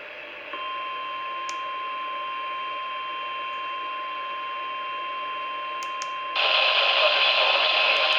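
Radio hiss, then a steady single-pitch alert tone near 1 kHz that starts about half a second in, like the 1050 Hz warning alarm tone of a weather radio alert. About six seconds in, a loud static-like hiss comes in over the tone.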